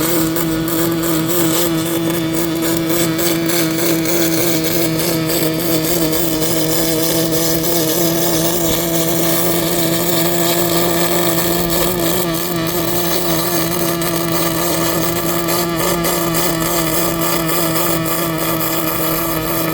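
MIG welder running a bead: the arc crackles and sizzles over a steady electrical hum, with the crackle coming and going.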